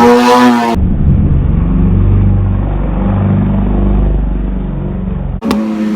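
Sport motorcycle engine revving hard as it passes. About a second in the sound turns muffled into a deep low rumble, and it clears again near the end.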